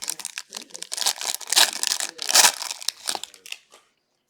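Plastic wrapping on a hockey card box or pack being torn open and crinkled by hand, a dense run of crackles that stops a little before the end.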